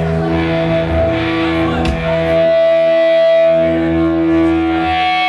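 Amplified electric guitar and bass playing long, sustained notes that change pitch a couple of times.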